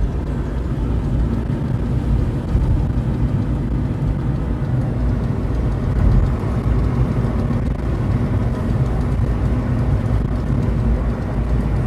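Steady road and running noise inside an eighth-generation Honda Civic's cabin at about 80 km/h, a low rumble with no separate knocks. Within it is an annoying noise from the right side of the car, which the owner traces to a loose plastic belt shield under the engine that the wind pushes against the wheel.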